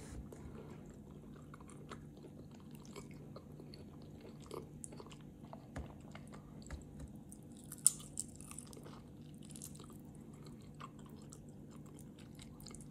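Faint chewing and mouth sounds of someone eating pap and stew by hand, with scattered soft clicks and taps of fingers and food. One sharper click comes about eight seconds in, followed by a smaller one. A steady low hum runs underneath.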